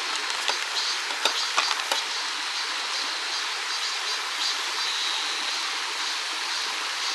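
Mountain valley stream flowing steadily, with a few sharp ticks between one and two seconds in.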